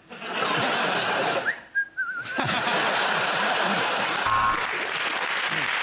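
Studio audience laughing and applauding after a joke, with one short wavering whistle from the audience about one and a half seconds in.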